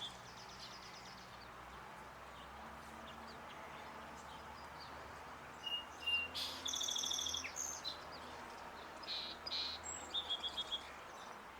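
Songbirds singing: scattered short high chirps and quick trills, busiest about six to seven seconds in and again near the end.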